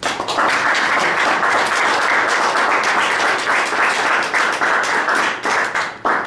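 Audience applauding, starting all at once and dying away near the end.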